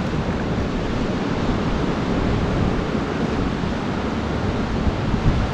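Steady wind buffeting the microphone, a low rumbling noise, mixed with the wash of surf.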